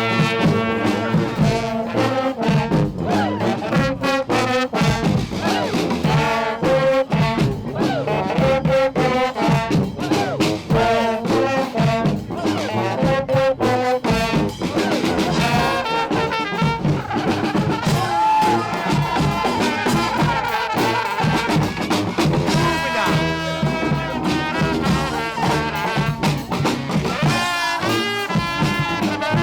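Honk street band of brass and percussion playing, horns over a steady drum beat.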